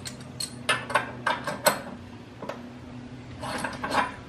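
Light metallic clinks and taps of a steel scissor-jack crank handle, about a dozen irregular knocks with a brief ring, as it is set down and moved about on a metal floor drain grate. A steady low hum runs underneath.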